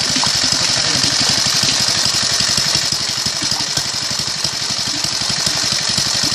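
A small engine running steadily with an even, rapid chugging beat, over a constant hiss.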